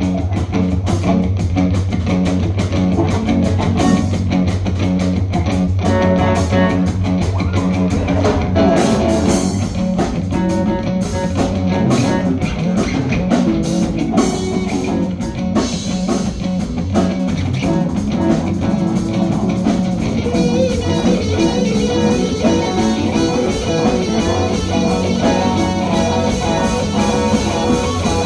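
Live rock band playing: electric guitar over bass and a drum kit, with the cymbals brighter from about two-thirds of the way in.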